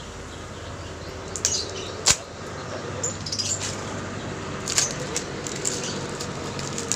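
Packaging of rat glue being opened by hand: scattered crinkles and clicks, with one sharp knock about two seconds in.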